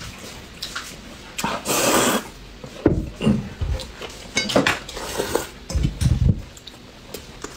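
Chopsticks clicking and knocking against metal noodle bowls as noodles are lifted and eaten. A brief loud hiss comes about two seconds in.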